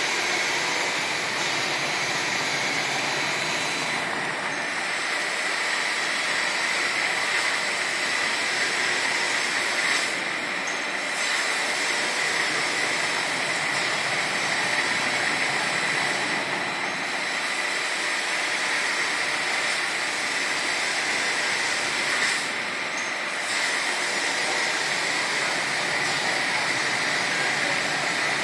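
CNC gantry guideway grinder's vertical grinding head grinding a machine guideway as the table traverses, with coolant pouring over the work. It makes a steady grinding hiss with a faint high whine.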